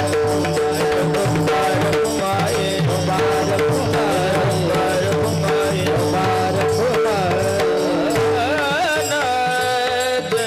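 Kirtan devotional music: hand-drum strokes over a steadily held drone note. In the second half a melodic line bends and wavers.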